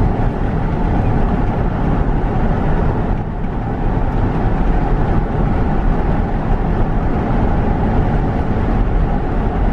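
Steady road noise of a car being driven: engine and tyres running at an even speed.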